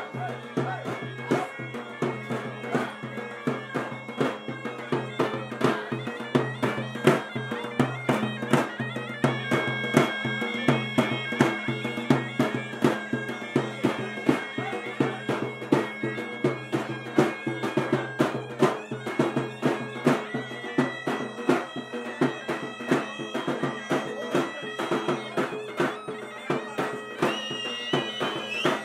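Traditional folk dance music: a reedy wind instrument plays the melody over a steady drone, with a drum beating an even rhythm.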